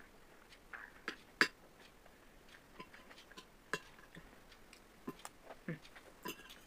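Metal spoon and fork clicking and scraping against a glass bowl while eating: a scatter of light, irregular clinks, the sharpest about a second and a half in and just before four seconds.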